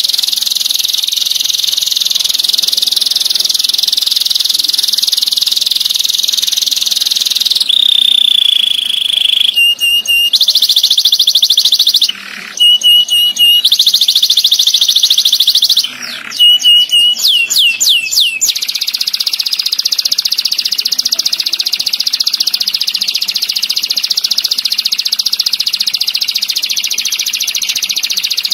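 Domestic canary singing long, rapid rolling trills, high-pitched. About eight seconds in, the roll gives way to a held note and then short choppy phrases with a few quick falling whistles. Near the two-thirds mark it settles back into a long unbroken roll.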